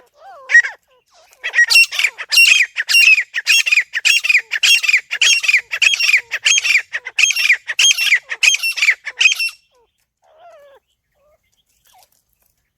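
Francolin (teetar) calling: after one short note near the start, a fast string of loud repeated call notes, about two a second, begins about a second and a half in and stops suddenly a little past the middle.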